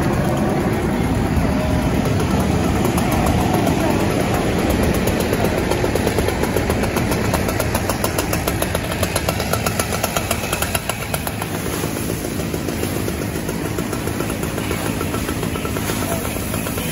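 Loud, steady rushing noise of a fire attack, a hose stream on a burning car and brush fire, with an engine running underneath. Fine rapid crackles run through the second half.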